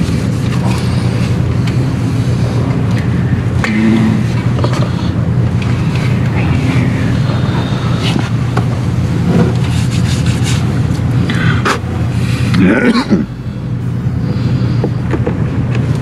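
A steady low hum, with scattered clicks and scrapes as a plastic air line and its fittings are handled under a pickup's frame.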